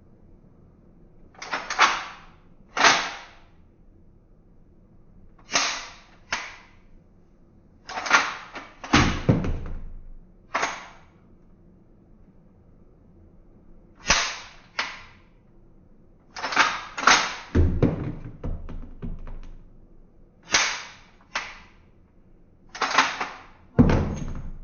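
Toy Beretta M9 pistol firing about a dozen and a half sharp shots, mostly in pairs about a second apart, a few with a heavier thump.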